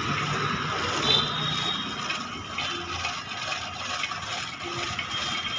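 Jagadhri domestic sewing machine run by an electric motor, stitching cloth at a steady speed, its needle and feed mechanism working in a fast even rhythm.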